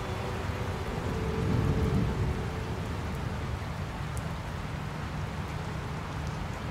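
Steady rain, with a low roll of thunder swelling and fading about one and a half to two and a half seconds in.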